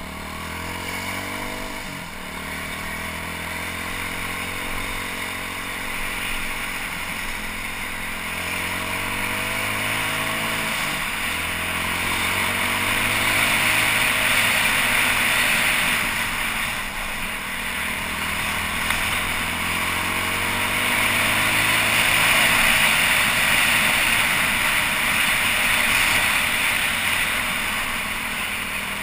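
BaltMotors BM Motard 200 supermoto's single-cylinder engine under way on the road, its revs rising and falling again and again as it is ridden through the gears. Wind rush swells over it twice as speed builds, about halfway through and again near the end.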